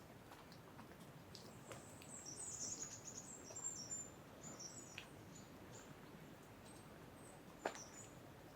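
A small bird twittering high and fast for about three seconds, then a few more chirps later, over a faint steady hiss of wind in the trees. One sharp click comes near the end.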